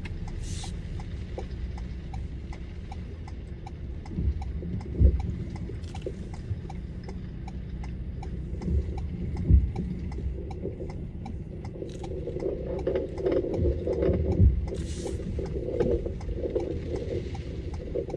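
Car's turn-signal indicator ticking steadily inside the cabin over the low rumble of the engine and road, with a few dull thumps.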